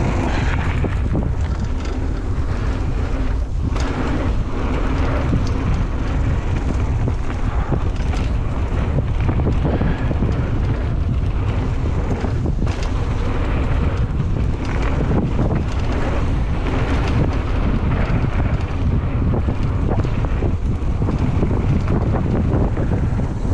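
Wind buffeting the camera microphone and the roar of tyres on a dirt trail as a Ragley Big Al hardtail mountain bike descends at speed, with a steady scatter of small rattles and knocks from the bike over the bumps.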